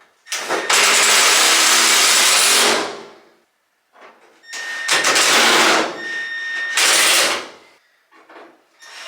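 A power drill-driver running in three separate bursts as it drives three screws in. The first burst is long, about two and a half seconds; the second and third are shorter, and the second has a steady motor whine.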